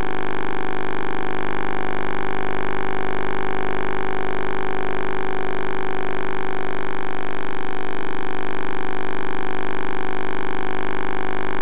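Steady electronic hum made of many held tones at once, high and low, with no change in pitch or level.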